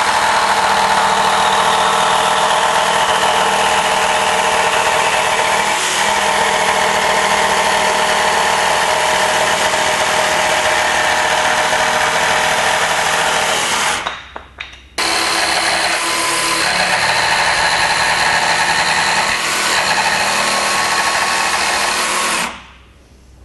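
Bosch cordless jigsaw cutting through plywood, the motor and blade running steadily. It stops for about a second around two-thirds of the way through, starts again, and stops shortly before the end.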